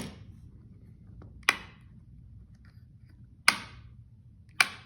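A new household wall light switch being flipped, giving three sharp single clicks about a second and a half in, at three and a half seconds, and near the end.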